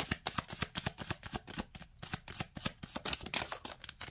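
A deck of tarot cards being shuffled by hand: a fast, uneven run of papery flicks and slaps, several a second, that stops near the end.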